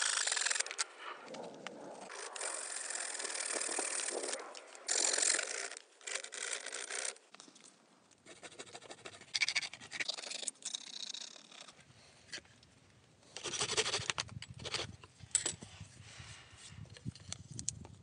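A hand saw cuts through a thin wooden board in quick strokes, stopping about a second in. After that come intermittent bursts of scraping on wood, with scattered small scratches and light knocks.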